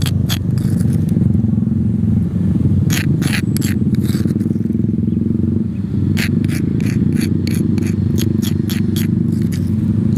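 A plastic spoon scraping crushed shallot and garlic out of a stone mortar in short, quick strokes: a few about three seconds in, then a faster run of about three a second from about six seconds on. Under it runs a loud steady low hum.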